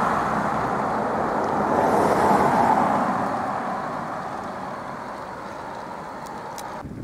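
Road traffic noise from cars driving past close by. One passes loudest about two to three seconds in and then fades, and the sound cuts off abruptly at the very end.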